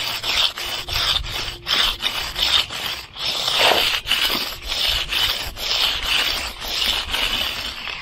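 Hand concrete edger scraping along the edge of a fresh slab against the form board in short back-and-forth strokes, about two a second: edging the slab to round it off and leave the edger mark.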